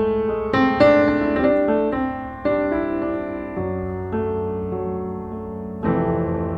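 Background piano music: notes struck one after another, each dying away, with a sustained low chord underneath.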